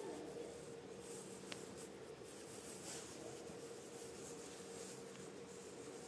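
Quiet indoor room tone with a faint steady hum and a single small click about one and a half seconds in.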